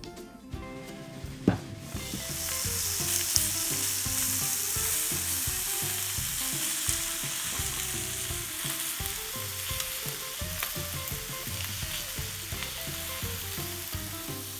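Hamburger patties sizzling on the seasoned steel plate of a Blackstone 1650 griddle. The frying starts abruptly about two seconds in and then continues steadily.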